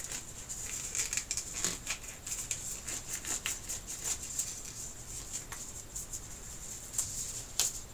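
Scattered soft clicks and rustles of hands handling the parts of a disassembled LCD TV, over a faint steady high hiss.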